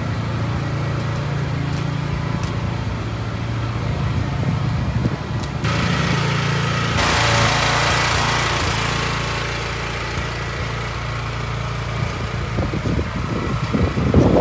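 A steady low engine drone. About seven seconds in, a loud, even rush of air from a running fan joins it.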